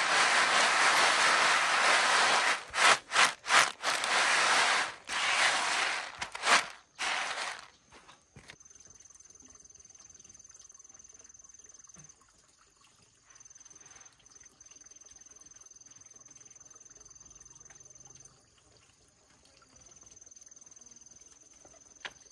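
Dried luffa seeds swishing and rattling as they are shaken and tossed in a woven bamboo winnowing tray, in several loud bursts over the first eight seconds or so. After that comes an insect's high, steady trill, breaking off now and then.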